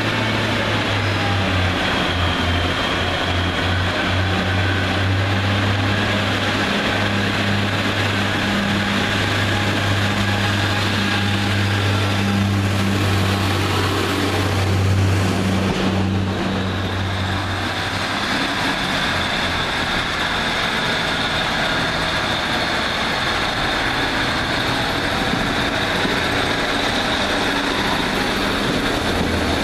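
Diesel multiple units at a station platform. A Class 142 Pacer's underfloor diesel engine drones steadily as the unit runs past, fading about two-thirds of the way through. A high, thin steady tone follows as a Class 150 unit moves by, with its low engine drone coming back near the end.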